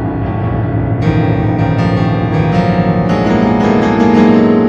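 Instrumental keyboard music: low sustained notes, with a new chord struck about a second in and then a run of quick notes that builds to its loudest near the end.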